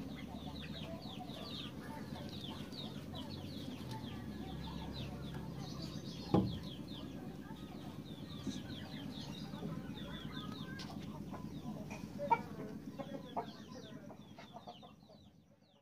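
Birds in the background with rapid, high, short chirps one after another, over a steady low hum. There is a single thump about six seconds in, and everything fades out near the end.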